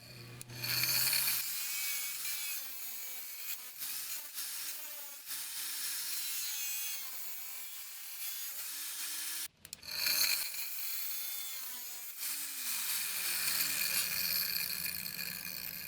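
Angle grinder fitted with a homemade adapter, running and working wood; its motor whine dips and recovers in pitch as it bites into the material. The sound cuts out briefly about halfway through and starts again.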